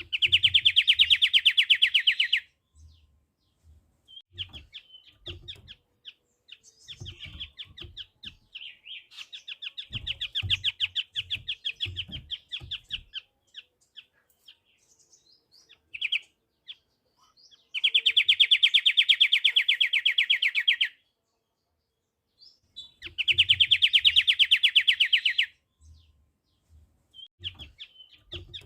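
Pied triller (kapasan kemiri) singing rapid, pulsed trills: three loud trills of a few seconds each, with softer, broken trilling between them. Faint low thumps come here and there.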